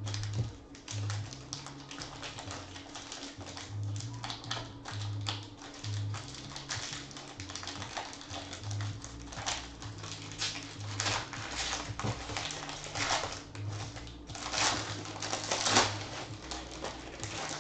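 A foil trading-card pack crinkling and tearing as it is opened by hand: a continuous run of crackles that is densest near the end as the wrapper is pulled off the cards. Background music with a steady low bass pulse runs underneath.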